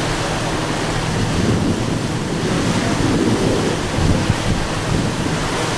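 Wind buffeting the microphone on the deck of the moving ferry Queen of Oak Bay, over the rush of the sea and the ship's steady low engine hum, gusting a little harder about three to four seconds in.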